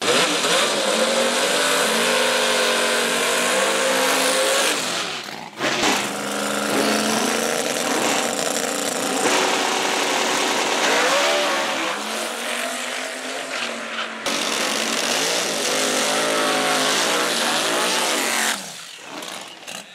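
Fox-body Ford Mustang drag car's V8 engine at high revs during launches and a burnout, in three clips joined by abrupt cuts, its pitch wavering and gliding up and down. It drops away near the end.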